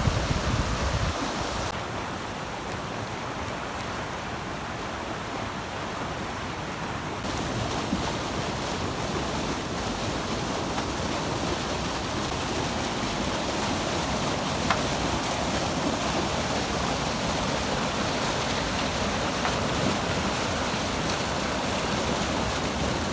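Steady rush of fast-flowing water at a partly iced-over waterfall, growing a little louder and fuller about seven seconds in. Wind buffets the microphone for the first couple of seconds.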